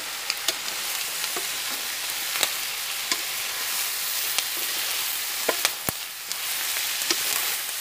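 Freshwater snails in their shells sizzling as they sauté in a wok, stirred with a metal spoon. Short sharp clicks of shells and spoon against the pan come again and again, one louder near the end.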